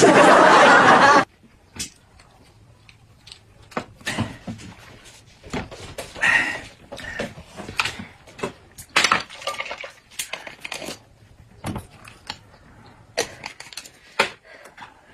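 Tableware and eating sounds at a meal: short clicks and knocks of chopsticks, spoons and cups against plates and bowls, scattered irregularly, with mouth sounds of eating between them. About the first second is taken up by a loud burst of noise that cuts off suddenly.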